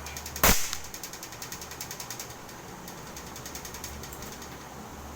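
A single air-rifle shot: one sharp crack about half a second in, dying away quickly. Behind it runs a fast, regular, high-pitched ticking.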